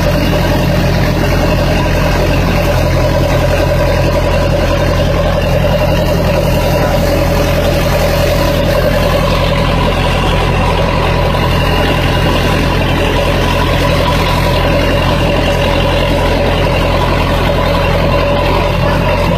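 A heavy engine running steadily at an even speed, a constant drone with a steady tone and no change in pitch or level.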